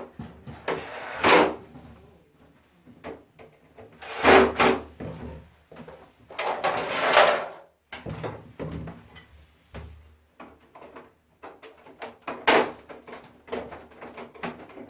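Parts of a wall-mounted air conditioner being handled: a run of clicks and knocks with four louder sliding, scraping sounds, like panels and covers being pushed and fitted into place.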